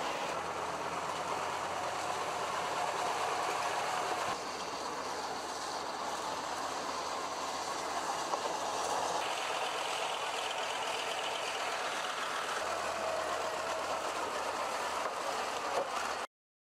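Tracked armoured vehicle's engine running steadily as it drives up onto a loading ramp, with a few abrupt shifts in level. The sound cuts off suddenly near the end.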